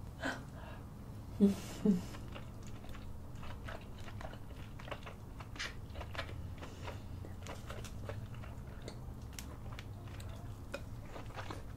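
Close-miked eating sounds: wet chewing, biting and lip smacks with many small clicks, as seafood boil in cheese sauce is eaten by hand. A brief vocal sound from the eater comes about a second and a half in.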